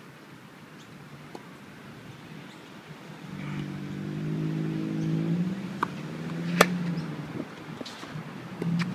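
A motor vehicle's engine hum passes by, building about a third of the way in and fading after about seven seconds. Partway through, a sharp crack of a tennis ball struck by a racket cuts across it.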